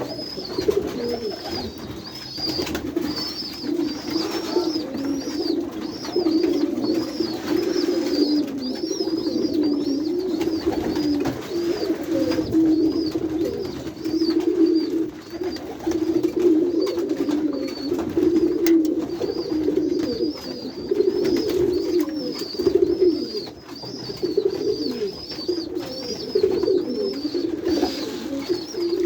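Many pigeons cooing together in a small loft room, a continuous overlapping warble, with a high chirp repeating about twice a second and scattered light clicks.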